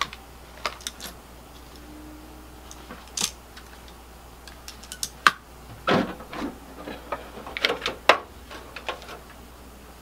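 Scattered clicks and knocks from the side cover of a Dell PowerEdge T320 tower server being unlatched and lifted off, busiest in the second half.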